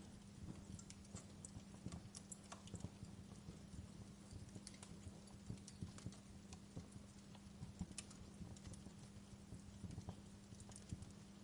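Wood fire in a fireplace crackling: irregular small pops and snaps, a few sharper ones, over a low steady hum.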